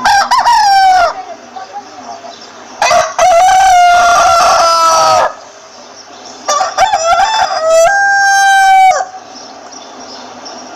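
Rooster crowing three times, a short crow at the start and two longer ones of about two to two and a half seconds, with quieter clucking between the crows.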